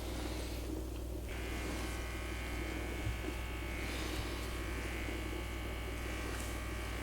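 A small electric motor buzzing steadily, with a higher steady whine that starts about a second in.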